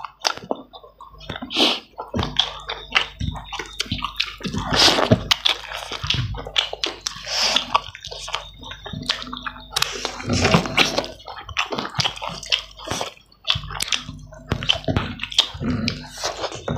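Close-up, wet eating sounds of people eating chicken and rice by hand: irregular chewing and lip-smacking, with fingers squishing saucy rice.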